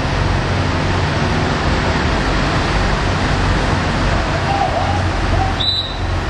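Steady rumble and rushing noise of heavy machinery running, with a brief drop near the end.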